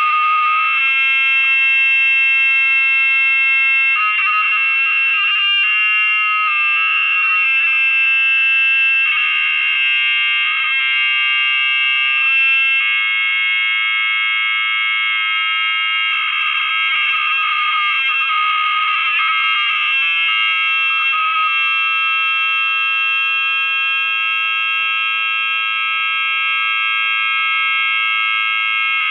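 A loud, continuous high electronic buzz made of several steady tones stacked together, the mix of pitches shifting every second or few seconds.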